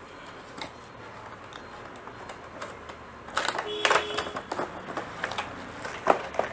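Scattered light clicks and taps of a laptop and its hard plastic parts being handled, with a denser run of clicks about three and a half seconds in.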